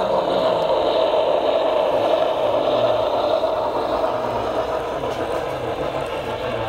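HO scale model steam locomotive and its train of loaded coal hoppers rolling past on the track: a steady clatter and rattle of small metal wheels on rail, easing off a little once the engine has passed and the hoppers follow.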